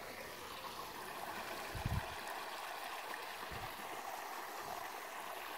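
Shallow creek water running over rocks into a pool, a steady babble from a creek that normally lies dry and is flowing after rain. Two short low thumps come through, about two seconds in and again a little later.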